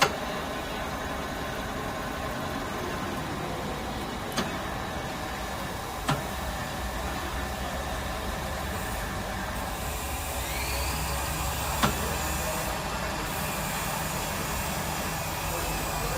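Kasuga NV2U2 milling machine running, a steady motor hum and machine noise with a few sharp clicks. About twelve seconds in the motor's low note changes, as with a change of speed or feed.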